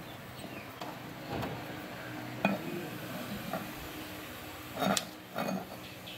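Metal hand tools being handled on a motorbike engine: a light knock about two and a half seconds in, then a short clatter of metal near five seconds as a long T-handle socket wrench is picked up.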